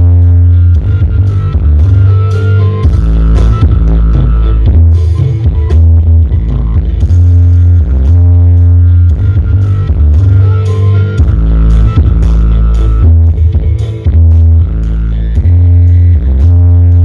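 Music played at very high volume through a large outdoor sound system with a 16-subwoofer stack during a sound check. Deep bass notes, each held for about a second, are far louder than the rest of the music, and the recording is close to overloading.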